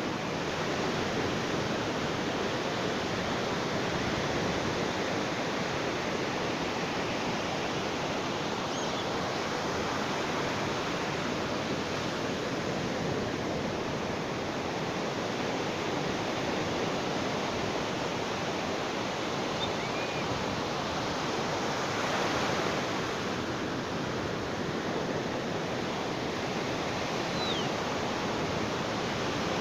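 Ocean surf: a steady wash of breaking waves, swelling briefly a little past two-thirds of the way through.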